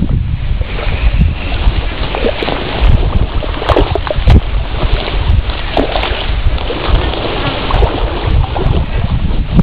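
Wind buffeting the microphone: a loud, continuous low rumble, with scattered short knocks and clicks through it.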